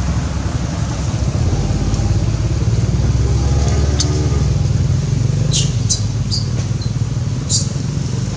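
Steady low rumble of a motor vehicle's engine, its pitch rising and falling once about halfway through. Several short, high-pitched chirps come in the last few seconds.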